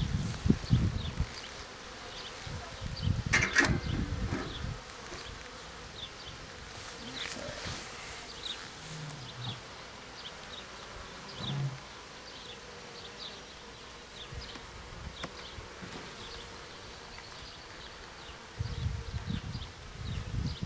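Honeybees buzzing around an open hive, with many brief whines as single bees fly close past. A sharp knock about three and a half seconds in, and low rumbling at the start and again near the end.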